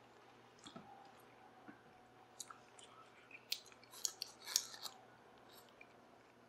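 Faint wet mouth clicks and smacks from chewing and licking sauce off the fingers, bunched together from about three and a half to five seconds in.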